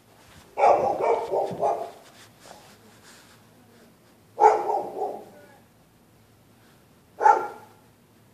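Neighbours' dogs barking in nuisance fashion, set off by people using the sidewalk: a quick string of barks about half a second in, a shorter group in the middle and one short bark near the end.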